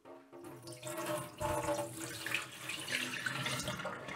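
Water poured from a plastic bowl into a stainless steel sink, splashing steadily and getting louder about a second and a half in.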